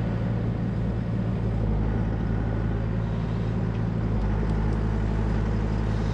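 Diesel engine of heavy construction equipment running steadily.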